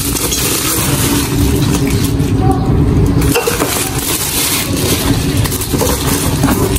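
Plastic packaging and bubble wrap crinkling and crackling as they are pulled off and handled, over a steady low rumble.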